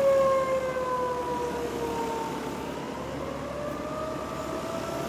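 Federal Signal 2001-series rotating electromechanical tornado siren sounding its steady test tone. The pitch slides down and fades over the first couple of seconds, then rises again toward the end. A steady whooshing haze from a running air-conditioner condenser lies beneath it.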